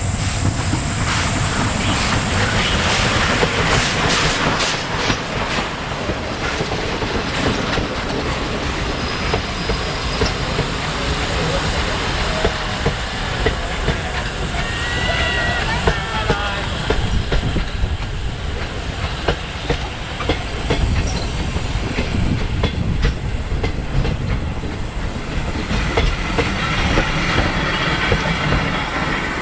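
Railway carriage rolling along the track: a steady rumble with the clickety-clack of wheels over rail joints, and a short high squeal near the middle.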